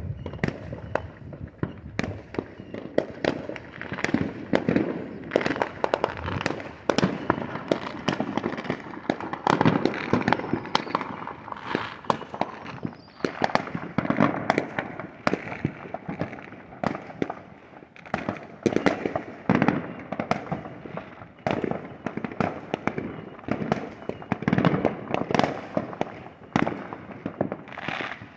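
Many fireworks going off at once: a dense, near-continuous barrage of overlapping bangs and crackling pops that rise and fall in loudness.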